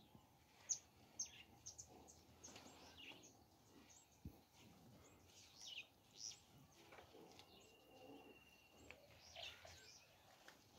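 Faint outdoor birdsong: many short, high chirps and quick downward-sliding calls scattered throughout, with one thin steady high tone held for about a second and a half a little past the middle.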